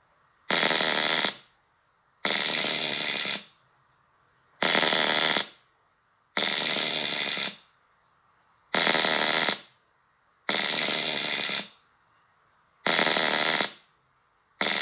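Pulsed tinnitus-masking noise: bursts of noise about a second long, repeating roughly every two seconds, with near silence between them.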